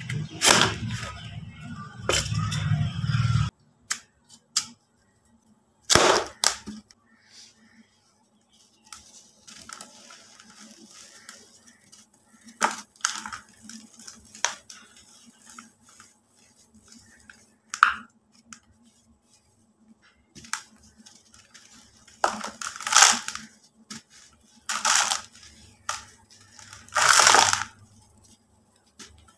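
Hands snapping and crumbling dry cast cement and white concrete blocks in a plastic bucket of cement dust. A dense crunching comes first, then several sharp cracks are spread through as pieces break, with gritty rubbing and trickling powder between.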